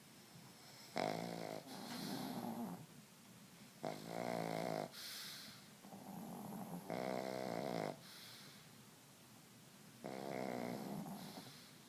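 Sleeping pug snoring: four loud snores about three seconds apart, with softer breaths between them.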